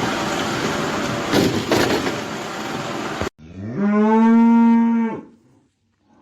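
A loud steady rush of noise cuts off abruptly just past three seconds in. Then comes one long held call that rises at its start, holds a steady pitch and drops away at its end.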